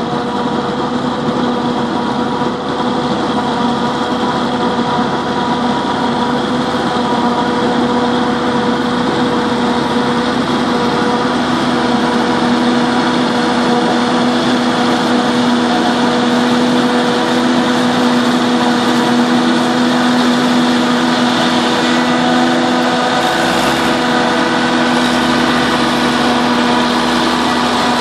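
Self-propelled forage harvester chopping maize, with a tractor and silage trailer running alongside it: a steady machine drone with a constant hum, growing slightly louder as they draw closer.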